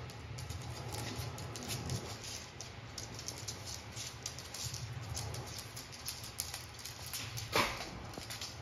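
Small dogs' claws pattering and scrabbling on a hard floor as they tug and wrestle over a plush toy, with many quick clicks throughout. One short, high, rising squeal stands out near the end.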